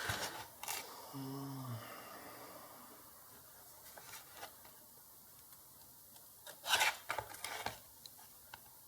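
Multimeter probe tips and the circuit board being handled: a few light clicks and scrapes near the start and a louder cluster of scrapes and clicks about two-thirds of the way through.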